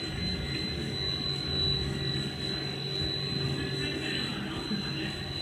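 3D snack pellet processing line running: the roller forming and cutting machines give a steady mechanical hum with a constant high whine.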